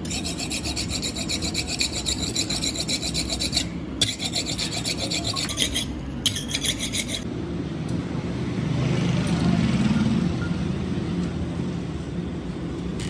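Tyre rubber being rasped, a harsh, fast-repeating scraping in three stretches with short breaks, stopping about seven seconds in. A low rumble then swells and fades.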